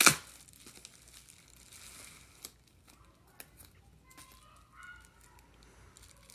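Plastic bubble-wrap pouch crinkling and rustling as it is handled and pulled open, with one loud, sharp crackle right at the start and scattered small clicks after.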